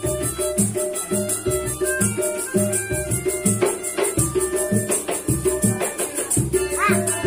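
Street musicians' music: a melodica holding and changing notes over a steady beat of low drum hits and a fast, even jingling of shaken percussion.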